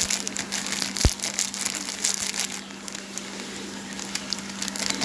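Crinkling and rustling handling noise while powders are spooned out, with one sharp knock about a second in. A steady low hum runs underneath.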